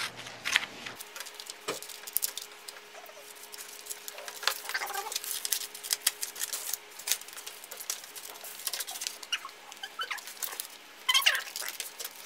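Scissors snipping through craft paper, with the cut paper slices rustling and sliding on a wooden desk: a string of short snips and papery clicks. Short squeaky whines come here and there, loudest near the end.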